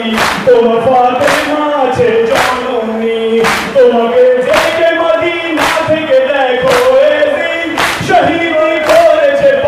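A man singing a noha, a Shia lament, into a microphone, with mourners chanting along. Under the singing come unison chest-beating (matam) strikes, about one a second.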